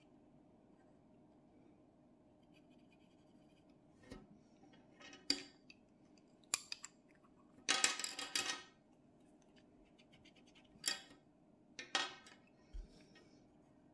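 A series of short scratchy rustles on a sheet of drawing paper, with one longer rustle of about a second midway.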